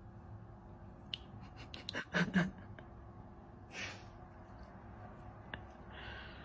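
A dog licking and mouthing a cat: a run of small wet clicks, a short low snort about two seconds in, and a breathy sniff near four seconds, over a steady low hum.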